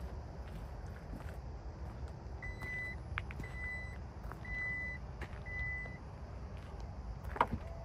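Power tailgate of a 2025 MG HS closing: four warning beeps about one a second while it lowers, then a sharp thud as it latches shut near the end.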